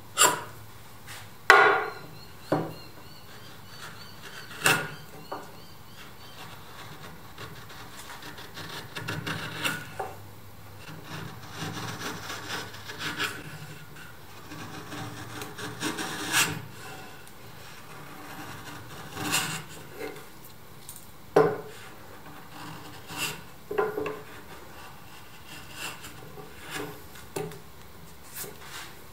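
Sharp chisel paring thin curls off the end grain of a wooden block: a dry scraping and slicing of the edge through the wood, with sharp short knocks every few seconds.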